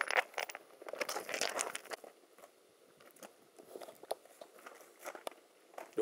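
Handling noise: clothing rubbing and brushing against the camcorder and its microphone while walking. The rustling is dense for the first two seconds, then thins to a few scattered light knocks.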